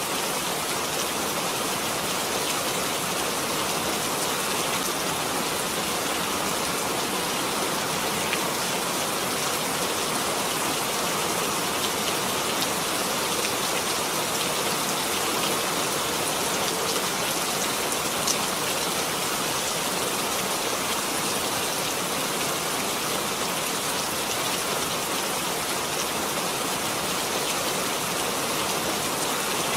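Steady rain falling, an even hiss of many drops with a few sharper drop ticks now and then.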